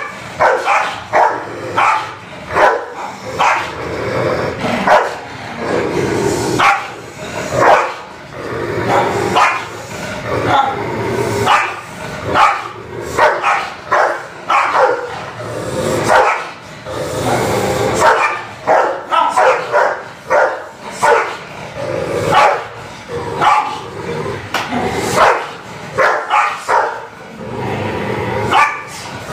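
Two dogs, a Pakistani bully kutta and another dog, barking aggressively at each other in a standoff over a bone on the floor: rapid, loud barks, several a second, with only brief pauses.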